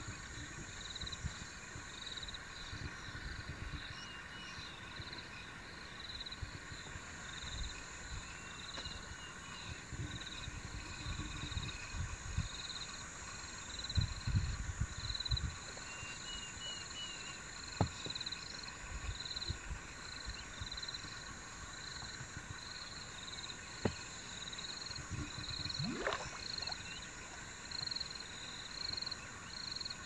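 A chorus of frogs calling from the reedy water's edge, with a pulsing call repeating about once a second over a steady background trill. A few short bird chirps and some scattered low thumps are mixed in.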